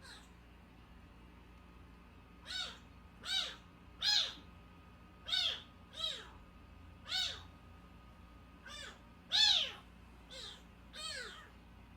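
Very young, unweaned kitten mewing: about ten short, high-pitched cries in a row, each rising then falling in pitch, beginning a couple of seconds in.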